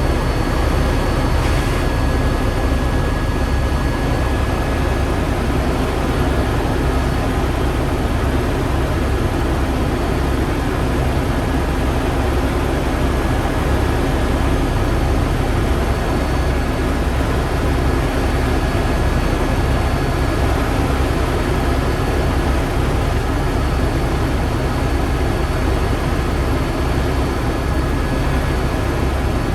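Helicopter running steadily: a constant, loud engine and rotor drone with a fast low flutter.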